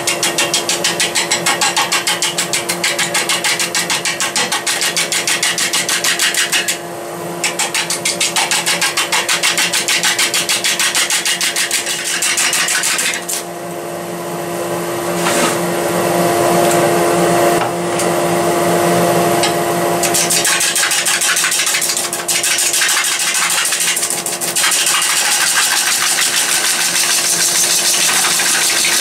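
Wood lathe turning a walnut log between centres while a gouge roughs it down: a rapid, even rattle of the tool biting the still-uneven blank with each turn, over the lathe's steady motor hum. The cutting breaks off briefly twice, about 7 and 13 seconds in.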